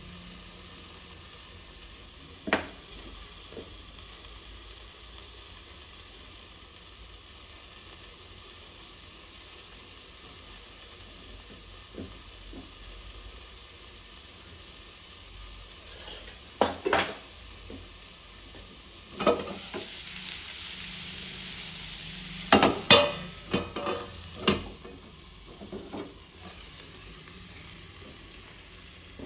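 Vegetables sizzling faintly in a frying pan under a steel lid on a gas stove. A sharp knock comes early, and past the middle several sharp metal clanks follow as the lid and pan are handled and lifted off the burner, with the sizzling louder for a few seconds while they are moved.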